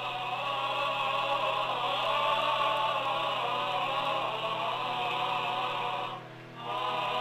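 Film soundtrack music of sustained, slowly wavering held chords that break off briefly about six seconds in and then resume, over a steady low hum.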